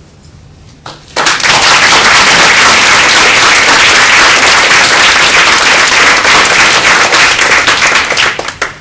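Audience applauding, starting about a second in, loud and steady, then tailing off near the end.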